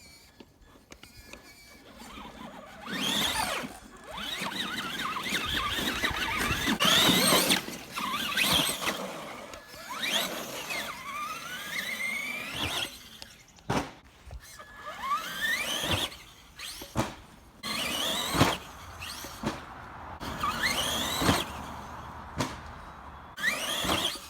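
Electric motor of a Traxxas Slash RC truck whining in repeated throttle bursts, the pitch sliding up each time the truck speeds up, over a rushing noise while it drives.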